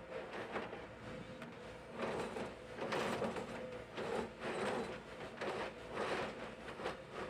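Excavator working in broken asphalt: a steady engine and hydraulic hum with repeated scraping and grinding of asphalt chunks, coming about every second from about two seconds in.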